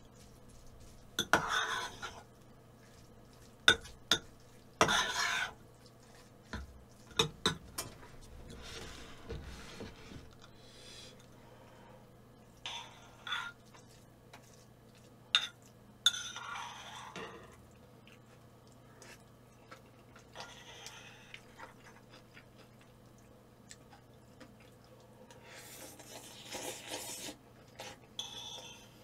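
Spoon clinking and scraping against a bowl as rice is mixed and eaten, in scattered sharp clinks with a few longer scrapes.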